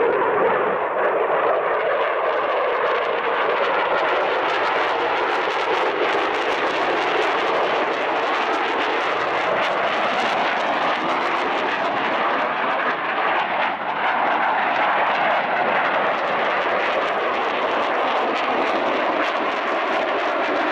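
Eurofighter Typhoon's twin EJ200 turbofan engines giving a loud, steady jet noise as it flies its display, dipping briefly about two-thirds of the way through.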